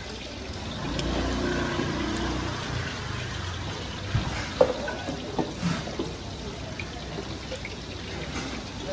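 Liquid being scooped and poured in a steel bucket. A few sharp metallic clinks and knocks of kitchen utensils follow, about four to six seconds in.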